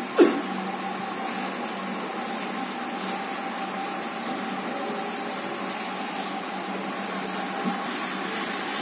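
A steady mechanical hum with a thin constant tone, and one sharp knock just after the start.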